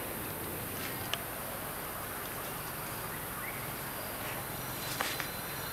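Steady high-pitched chorus of insects, with a couple of faint clicks about a second in and near the end.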